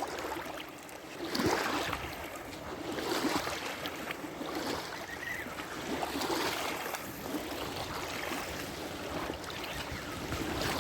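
River water lapping and splashing, rising in soft surges every second or two.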